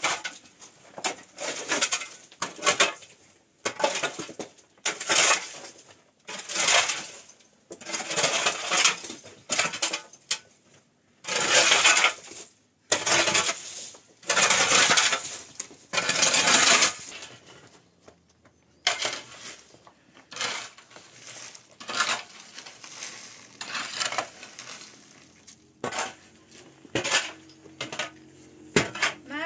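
Metal shovel scraping and scooping rubble and dirt off a dirt floor: a gritty scrape roughly every second, with three longer drags in the middle.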